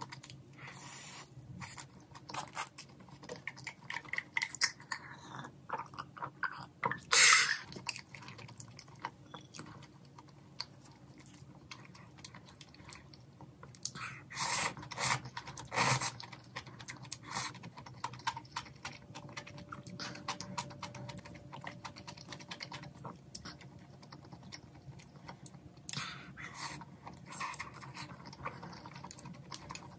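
Close-miked mukbang eating: chewing and crunching of a crispy potato-crusted mozzarella hot dog and slurping of mala noodles and broth, with many small wet clicks and a few louder bites or slurps, the loudest about seven seconds in and a cluster around fifteen seconds in.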